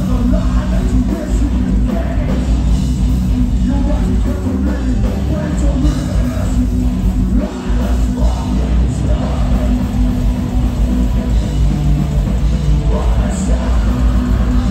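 Metalcore band playing live through a club PA: distorted guitars, bass and drums with a screamed lead vocal, loud throughout.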